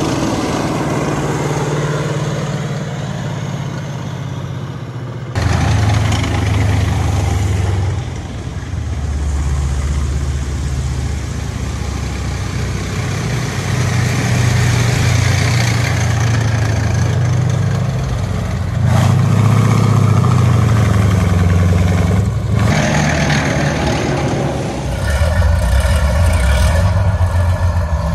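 WWII tracked armoured vehicles, M4 Sherman tanks and a tank destroyer, passing on a road with their heavy engines running in a loud low drone. The sound changes abruptly several times. About two-thirds in, an engine's pitch rises and falls, and near the end a high steady whine sits over the drone.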